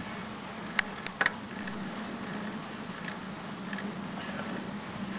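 Bicycle riding along a paved road: a steady low hum, with a quick cluster of sharp clicks about a second in.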